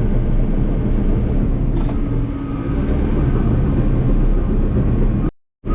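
Diesel engine of a crawler dozer running steadily under load while grading, a dense low rumble. The sound drops out completely for a fraction of a second near the end.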